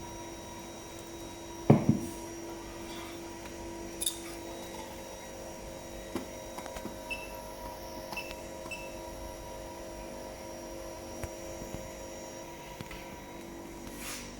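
Steady electrical hum of repair equipment, with a single knock about two seconds in and a few light clicks later.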